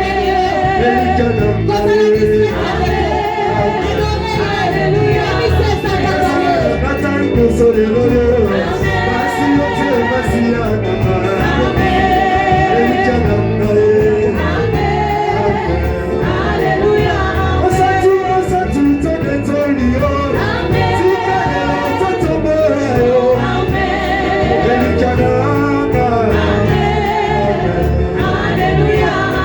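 Gospel worship music: singers with vibrato over a steady, dense band accompaniment.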